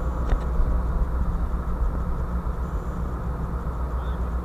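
Steady low machinery hum aboard a ship, with one faint click shortly after the start.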